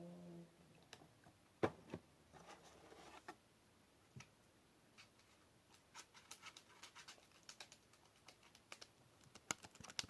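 Faint, scattered small clicks and wet squelches of a spoon working a bowl of jiggly, water-based homemade slime, with the taps coming thicker in the second half.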